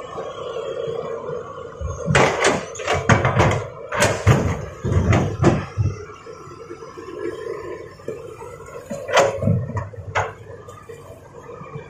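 A quick run of sharp knocks and clatters of hard objects striking each other, then a few more near the end, over a steady hum.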